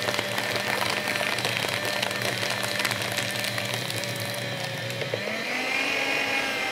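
Bonsaii C237-B paper shredder's motor running under load as it cuts through three stapled sheets of paper, with a dense crackle of cutting. About five seconds in the paper is through and the motor's pitch rises as it runs free; the staple goes through without trouble.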